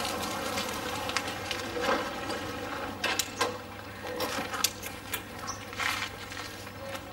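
Motorcycle engine running at low revs as the bike rolls up and stops. From about three seconds in, scattered clicks and knocks follow.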